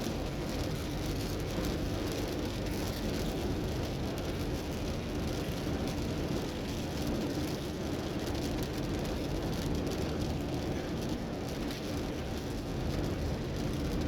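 A car driving in steady rain, with continuous, even engine, tyre and road noise mixed with the sound of rain.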